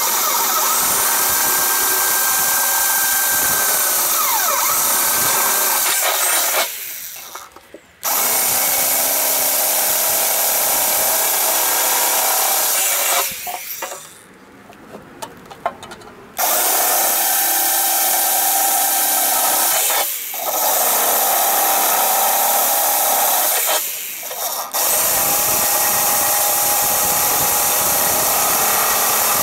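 Corded electric drill boring through the sheet-metal wall of a 2-litre fuel can, running in long stretches with a steady whine and stopping briefly about four times.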